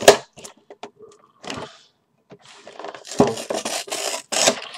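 A cardboard box being torn open by hand: a sharp snap at the start, a brief scrape about a second and a half in, then about two seconds of cardboard tearing and rustling near the end.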